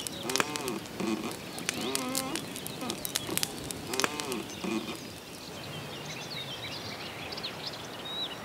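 A dove cooing over and over, with sharp crackles from a wood fire, for the first half; from about five seconds in, small birds chirping and twittering take over.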